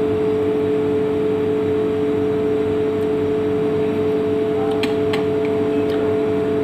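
A steady machine hum with one strong pitched tone. A few light clicks come about five seconds in.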